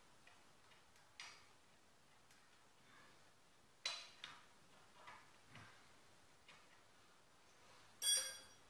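Hand tools clicking and clinking against the metal of a mini bike's engine, sparse and irregular, with a louder ringing metal clink near the end.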